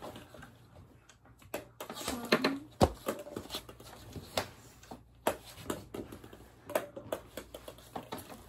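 Small light balls bouncing and tapping on a hardwood floor: a scattered series of sharp taps, the loudest a little under three seconds in. A brief low vocal sound comes about two seconds in.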